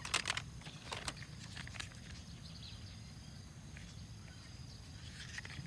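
A few light clicks and taps of a small toy car being handled, a cluster in the first half second, another two within the next couple of seconds and a few more near the end, over a faint steady background hum.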